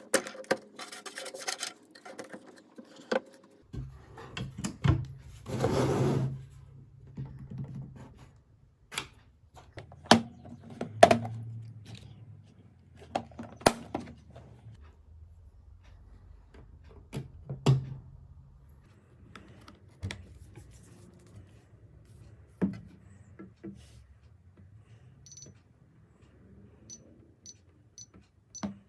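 Scattered clicks and knocks of a pistol safe and its parts being handled, with a roughly one-second rustle about six seconds in. Several short, faint high beeps come near the end.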